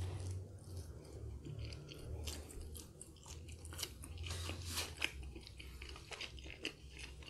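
Close-miked bite into a slice of beef pepperoni pizza, followed by chewing, with many short crunches and mouth clicks throughout.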